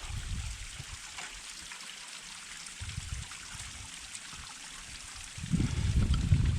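Small waterfall trickling and splashing in a steady hiss. About five seconds in, a loud low rumble of wind buffeting the microphone comes in.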